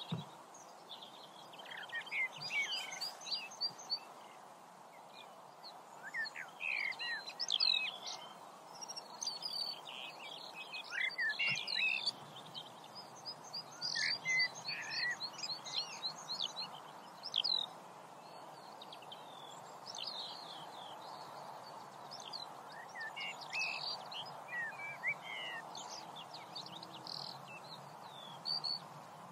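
Birds chirping and calling in repeated clusters of short, quick sweeping notes over a steady background hiss.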